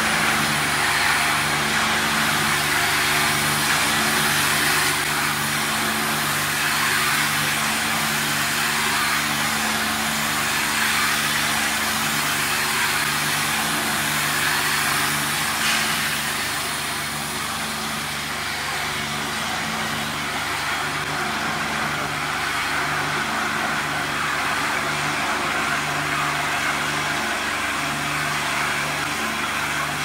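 Ultrahigh-pressure 5-gallon bottle rinsing machine running: a steady hiss of water jets spraying inside the bottle over a low pump hum that drops in and out. The hiss eases a little about halfway through.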